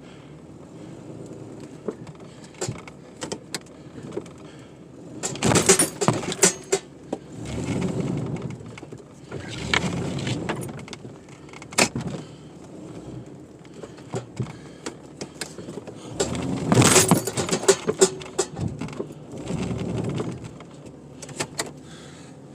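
Vehicle engine revving in several bursts over a steady idle, with sharp clicks and rattles between, as a stuck SUV is pulled out of deep snow with a tow rope.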